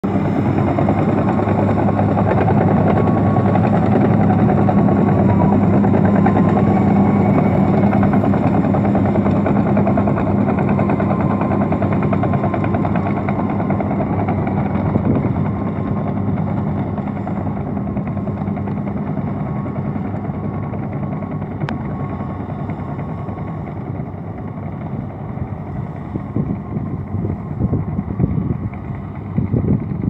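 Komatsu D65PX crawler dozer's diesel engine running steadily under load while it pushes earth with its blade. The sound grows gradually fainter over the second half as the dozer moves away.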